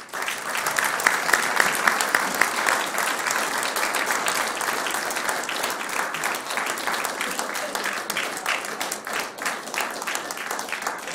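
Audience applauding: the clapping starts suddenly, is fullest in the first few seconds and slowly dies down near the end.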